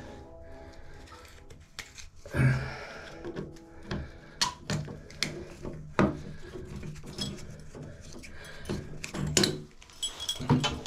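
Irregular clicks, knocks and metal clinks of hand tools and loose metal parts against a three-handle tub/shower valve as an aftermarket handle is worked off its stem with an Allen wrench, with a few sharper knocks among them.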